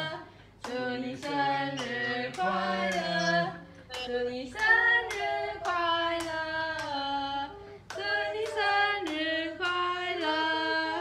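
Several voices, women and a child among them, singing a birthday song together, with hand claps now and then.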